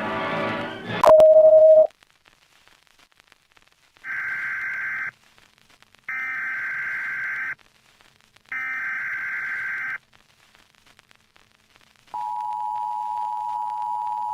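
Emergency Alert System alarm tones. Music cuts off about a second in with a click and a loud beep. Then come three buzzy SAME header data bursts, each about a second long with a second's gap between them, and near the end the steady two-tone EAS attention signal starts.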